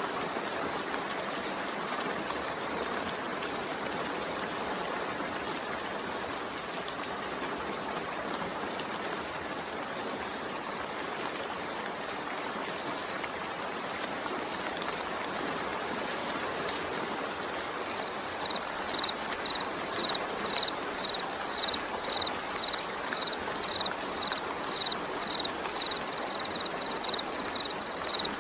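Steady rain falling, an even hiss. From about two-thirds of the way in, a cricket chirps on top of it, short high chirps about twice a second.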